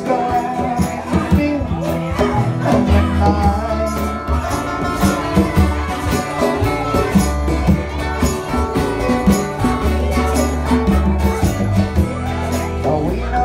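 Music playing: a song with a strong bass line, steady beat and tambourine-like shaken percussion.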